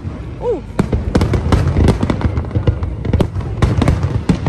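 Aerial fireworks display: shells bursting in rapid, irregular bangs and crackles, several a second, over a continuous low rumble of booms.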